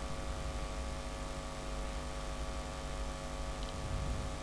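Steady electrical mains hum with a faint buzz.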